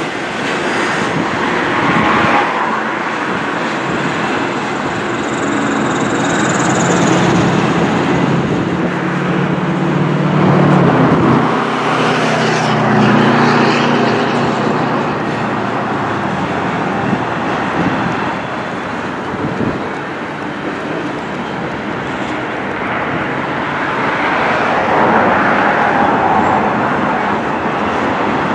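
Double-stack intermodal container train rolling past: a steady rumble and clatter of its wheels on the rails, swelling and easing as the cars go by.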